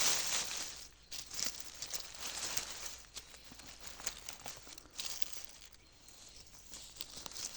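Crackling rustle of dry fallen beech leaves being disturbed. It is loudest in the first second, then goes on as scattered crackles that thin out near the end.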